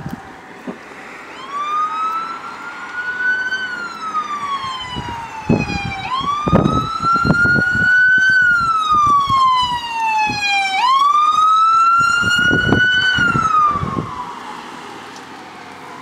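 Fire engine siren wailing in slow rising and falling sweeps, one about every four to five seconds, growing louder as it approaches and fading after about fourteen seconds, over low vehicle rumble.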